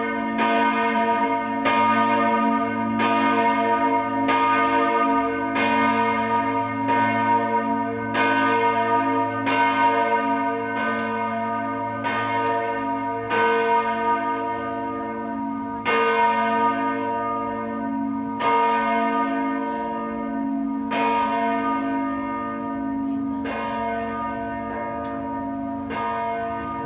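Church bell struck repeatedly, about once a second, each strike ringing on over a steady hum. In the second half the strikes come further apart and the hum dies away.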